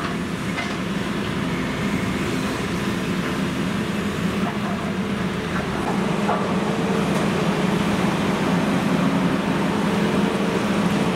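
Caterpillar 352F crawler excavator's diesel engine running steadily under digging load, with a few faint knocks through it.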